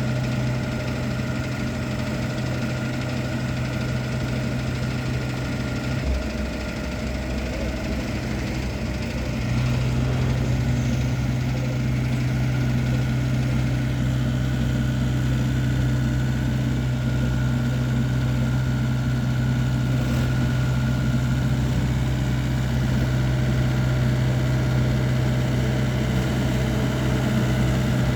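TZCO TZ60 mini excavator's diesel engine running steadily. About six seconds in its note dips, and from about ten seconds in it runs a little louder and steady again.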